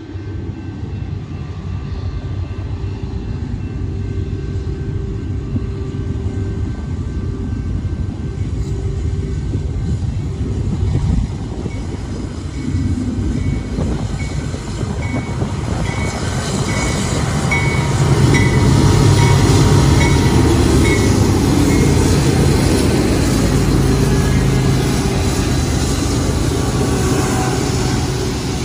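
BNSF diesel-electric freight locomotives approaching and passing close by, their engines' low rumble growing louder and peaking as the lead units go by. A high tone repeats about twice a second for several seconds before they arrive.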